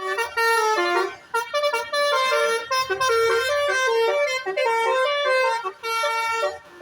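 Basuri telolet horn, a multi-trumpet air horn, playing a quick tune of short stepped notes, several tones sounding together, with brief breaks.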